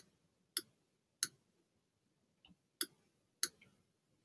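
Computer mouse button clicking five times: short, sharp single clicks spaced irregularly, half a second to a second and a half apart.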